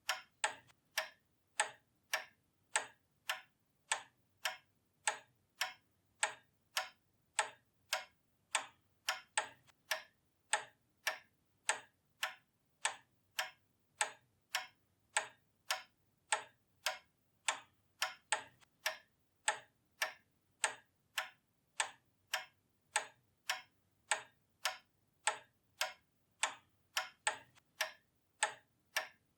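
Pendulum clock ticking steadily, about two ticks a second.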